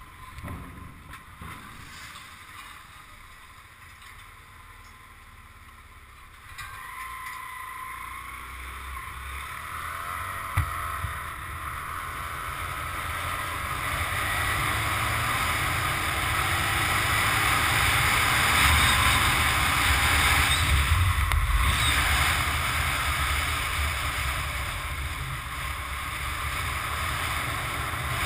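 Motorcycle ride heard from a bike-mounted camera: fairly quiet at first, then from about six seconds in a rush of wind over the microphone and road noise, with a low engine rumble, builds as the bike gathers speed, easing slightly near the end. A single sharp knock comes about ten seconds in.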